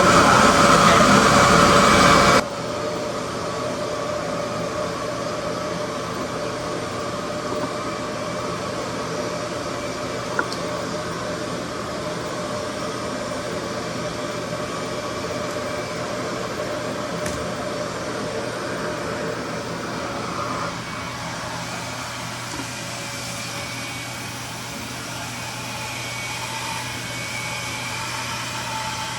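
RevAir reverse-air hair dryer, a vacuum-driven dryer that sucks the hair into its wand, running steadily. It is loud for about the first two seconds, then drops suddenly to a quieter steady whir with a low hum.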